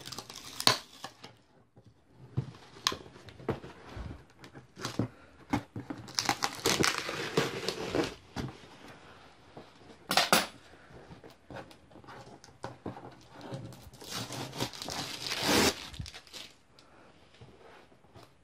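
Packing tape being cut and torn off a cardboard shipping box, with crinkling, scraping and knocks as the box is handled. The longest, loudest rips come about six, ten and fifteen seconds in.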